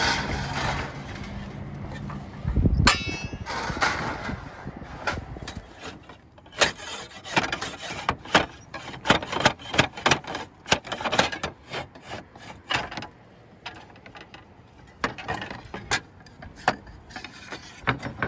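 Slate ripper worked under a roof slate and jerked against its hidden nails: a run of sharp, irregular metal-on-slate knocks and scrapes as the slate is worked loose.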